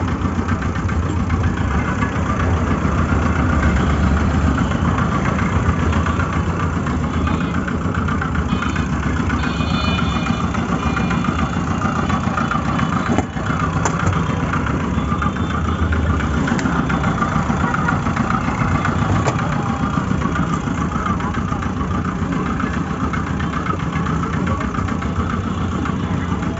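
An engine running steadily, with faint voices in the background and a brief click about halfway through.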